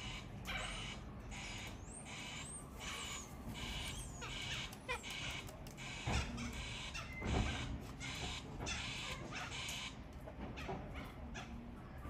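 Sulphur-crested cockatoo giving a run of short, harsh rasping calls, about two or three a second, which thin out near the end. Two louder knocks sound around the middle.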